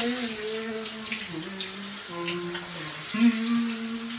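Shower water spraying steadily from a handheld shower head onto a man's head and shoulders in a tiled shower, with a man's voice over it singing slow held notes of about a second each.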